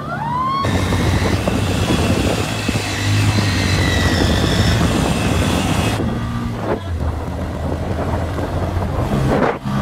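Motorcycle engine running steadily on the move, with wind noise on the microphone.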